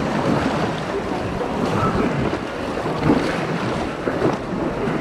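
Whitewater river water rushing and splashing around a paddled raft, with wind buffeting the microphone.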